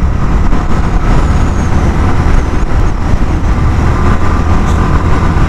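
Suzuki GS 150 SE's single-cylinder four-stroke engine running steadily while the motorcycle rides at road speed, with heavy wind rumble on the microphone.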